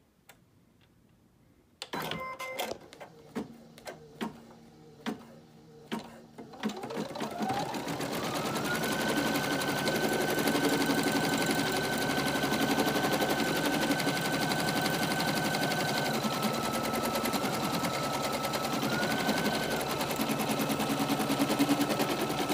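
Brother Innov-is NQ1600E embroidery machine starting an embroidery run. After a moment of quiet come a few separate clicks and knocks, then the motor speeds up with a rising whine into steady, rapid stitching. About two-thirds of the way through, its pitch drops for a few seconds and then rises again.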